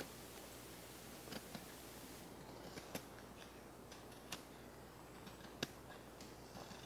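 Carving knife taking small paring cuts on a green birch spatula: a handful of faint, sharp snicks at irregular intervals.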